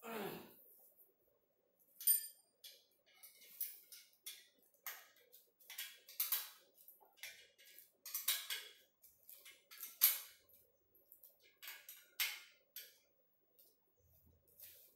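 Irregular crinkling of plastic wrap with light clicks, as a bolt is worked at the foot of a plastic-wrapped treadmill handle upright.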